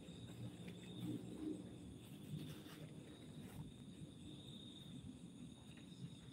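Crickets trilling steadily and faintly, a thin high note, over a low rumble of background noise.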